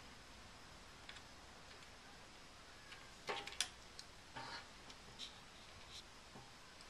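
Faint, scattered clicks and taps of the plastic and metal parts of a motorcycle fuel pump assembly being handled, with a short cluster of louder clicks about halfway through.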